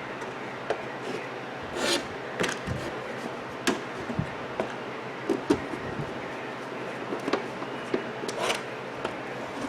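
Screws being driven back into the wall clock's frame by hand: irregular small clicks and taps with a few short scraping turns.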